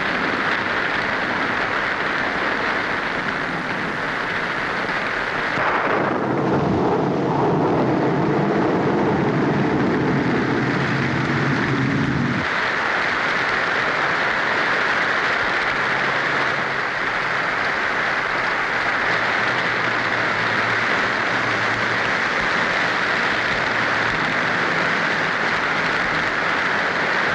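Steady rush of heavy rain and storm noise on an old film soundtrack, with a deeper rumble added from about six to twelve seconds in.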